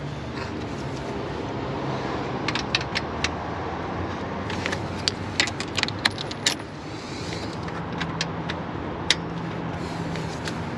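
Scattered light metallic clinks from metal objects being handled, over a steady background hum and hiss.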